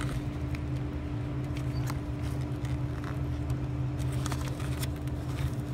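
Steady low machine hum with a constant tone, and a few faint clicks and rustles of handling.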